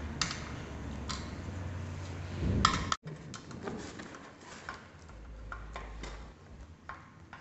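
Small clicks and ticks of a Phillips screwdriver turning the blade screws and of metal parts being handled as a ceiling fan blade is fastened to the rotor, with a louder handling noise about two and a half seconds in.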